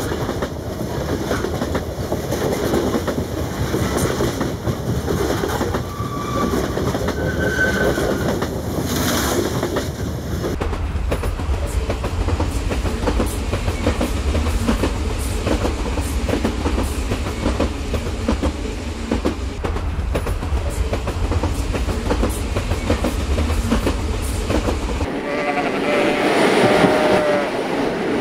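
Rail King battery-powered toy train running along plastic track, its small motor and wheels making a steady, dense rattling clatter over the track joints. A deeper low rumble is under it from about a third of the way in until near the end.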